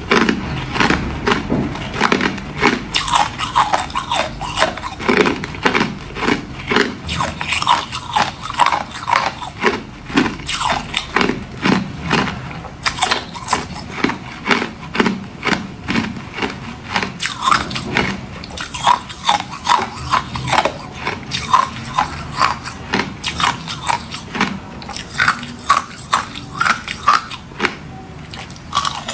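Hard ice cubes being bitten and crunched between the teeth: a rapid, continuous run of sharp cracks and crunches, easing off briefly about ten and eighteen seconds in.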